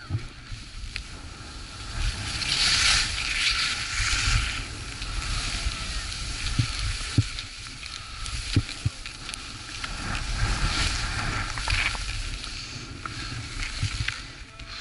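Skis scraping and swishing over mogul snow through turns, the hiss swelling louder twice, over a low rumble of wind on the microphone.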